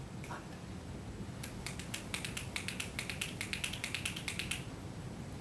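A quick run of sharp, light clicks, about eight a second, for some three seconds.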